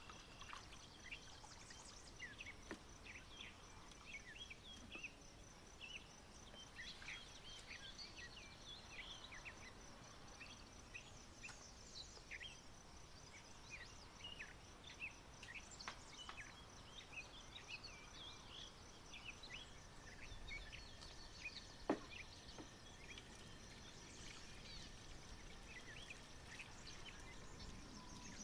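Faint outdoor birdsong: many short, high chirps from small birds scattered throughout, over a thin steady high whine. A single sharp click, the loudest sound, comes about two-thirds of the way through.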